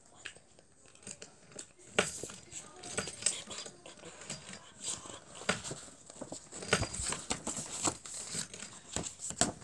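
Paper rustling and a scatter of irregular clicks and knocks as a paperback picture book is handled and its pages flipped.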